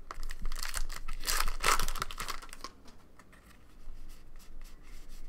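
A trading card pack's foil wrapper torn open and crinkled, loud for the first two and a half seconds or so. After that come softer light ticks of cards being slid and flicked in the hands.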